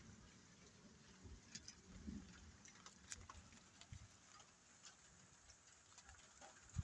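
Near silence, with a few faint clicks and soft low thumps scattered through.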